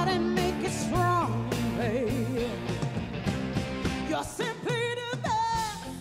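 Music: a song with a singing voice over instrumental backing.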